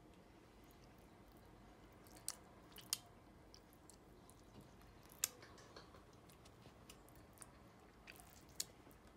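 Faint wet squishing of hands pressing green seasoning paste into raw fish steaks, with a few short sharp clicks.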